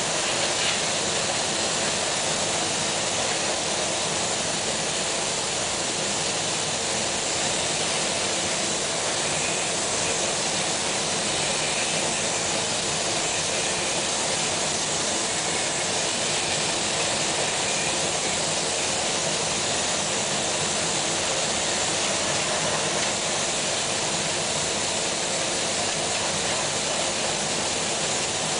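Steady hiss of a spray gun spraying continuously, as used in spray-on chrome application, with no break or change in level.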